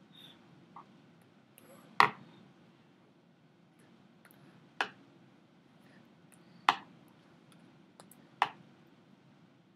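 Four sharp hand slaps as a signer's hands strike together during signing, the first about two seconds in and the rest about two seconds apart, over a faint steady low hum.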